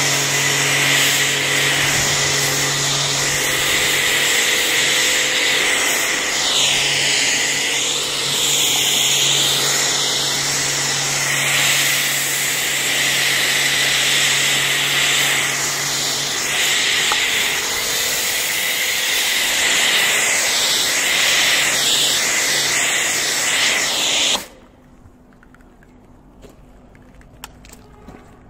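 Pressure washer spraying water onto a car: a loud, steady hiss whose tone shifts as the jet sweeps across the bodywork, with a low motor hum under it that stops partway through. The spray cuts off suddenly about 24 seconds in.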